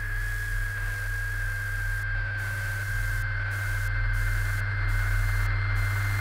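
Electronic static with a low hum and a high thin whine that slowly falls in pitch. From about two seconds in, the hiss stutters, dropping out briefly about once a second.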